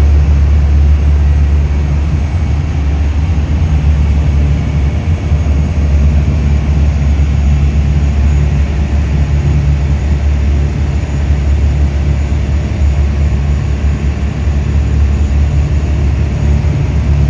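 A boat's engine running in a steady low drone.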